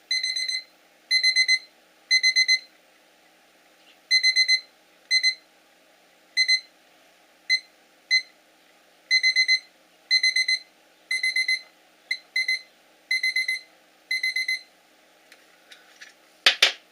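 Home-made electronic bite alarm built from a cheap Chinese alarm clock, its buzzer beeping in irregular short bursts of rapid high-pitched beeps as a bite signal. The beeping stops about two seconds before the end, and a single sharp clack follows.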